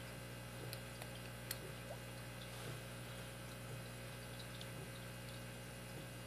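Faint, scattered clicks of a lock pick working the pins inside a Master Lock 160 padlock, over a steady low hum.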